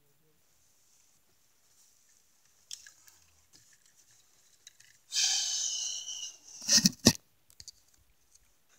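Phone microphone handling noise: near quiet at first, then a loud rustling hiss lasting over a second, followed by a few sharp knocks and bumps as the phone is picked up and moved.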